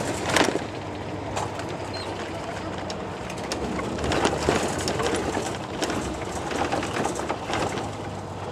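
Running noise of a moving vehicle heard from inside: a steady low hum under a rushing noise, with a few short knocks or rattles near the start and again about four seconds in.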